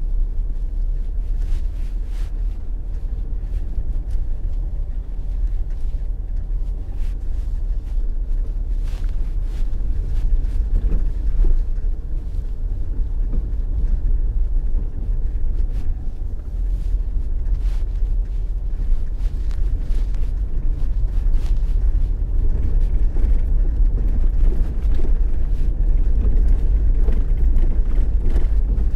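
A car driving along a road, heard from on board: a steady low rumble of road and engine noise.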